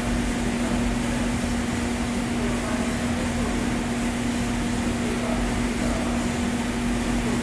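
Probat G75 drum coffee roaster running at the green-coffee intake stage: a steady mechanical drone of motors and fans with a constant low hum, unchanging throughout.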